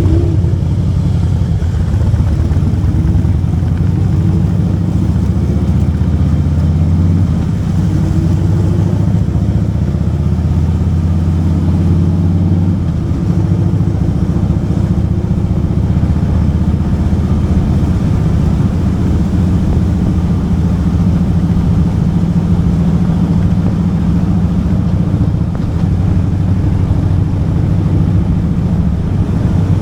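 Motorcycle engine running steadily while riding on the road, its engine note shifting in pitch a couple of times.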